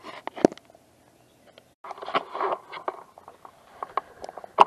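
Footsteps crunching and scraping on a woodland trail, with scattered sharp clicks. The steps fall quiet for about a second, then go on, and a single sharp knock comes near the end.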